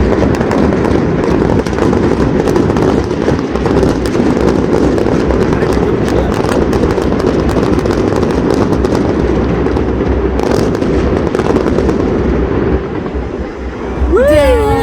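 Fireworks going off in rapid succession: a dense, continuous rattle of crackling and bangs. Near the end a singing voice comes in over it.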